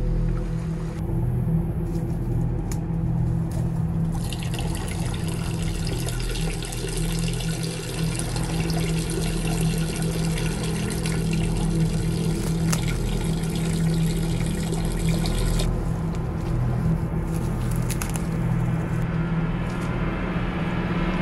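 A man urinating: a steady stream of liquid splashing starts about four seconds in and stops abruptly a few seconds before the end, over a steady low hum.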